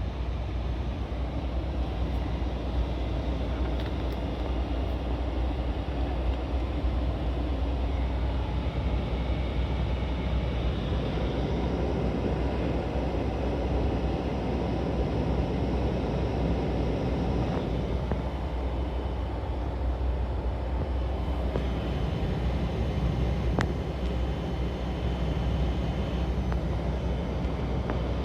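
Daihatsu Hijet engine running steadily with its air conditioner on, a low drone with faint thin high tones over it: the abnormal noise from the air-conditioning system.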